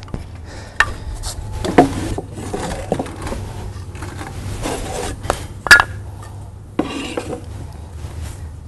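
Wooden apple boxes, cribbing and wedges being set and knocked into place under lengths of dolly track: a string of sharp wooden knocks at irregular intervals with scraping between them, the loudest knock about six seconds in.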